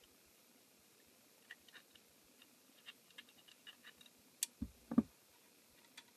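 Small clicks and scratches of 3D-printed plastic crossbow parts and a rubber band being handled, then a sharp click followed by two dull thumps, the second the loudest.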